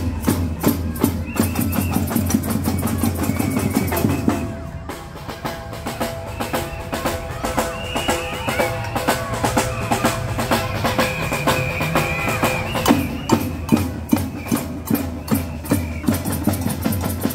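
Street parade music with a steady, driving drum beat. It drops briefly about four and a half seconds in and then picks up again.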